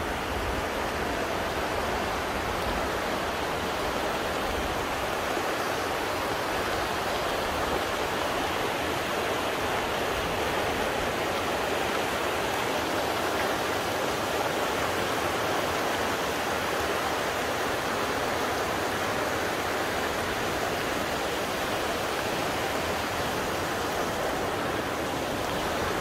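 Steady rush of falling and flowing water from Burney Falls and the river below it, an even noise with no breaks.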